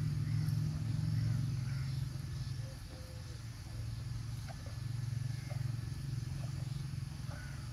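A steady low rumble that swells and dips in level, with faint chirps above it.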